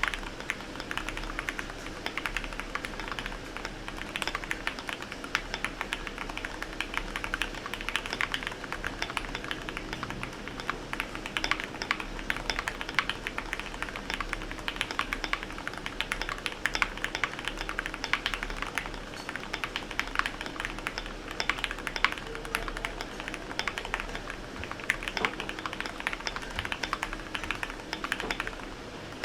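Continuous typing on a flex-modded GMMK Pro mechanical keyboard with lubed Gateron Milky Yellow linear switches: quick, irregular key clacks with no click or tactile bump, the board's flex-cut plate and gaskets giving a softened bottom-out.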